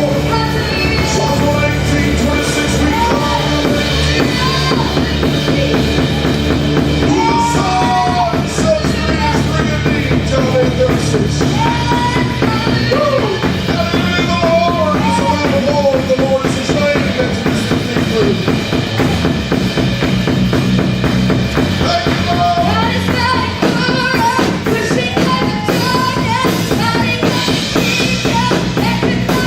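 Live gospel worship band playing at a steady loud level: drum kit driving a fast beat, with bass guitar, keyboard and a sung melody line over it.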